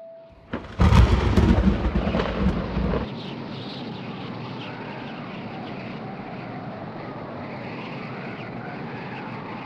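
A click, then a loud, deep rumble about a second in that cuts off abruptly near three seconds, giving way to a steady rushing noise with faint wavering tones.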